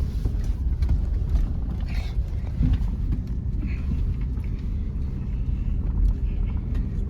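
Toyota 4Runner heard from inside the cabin, its engine running low and steady as it crawls over rough off-road terrain, with scattered knocks and rattles as the truck lurches over rocks.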